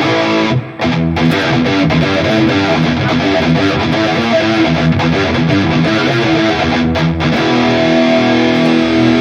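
Electric guitar played through a NUX MG-30 modeling unit with its detune effect on: a run of chords and notes with brief stops about half a second in and about seven seconds in, ending on a held chord.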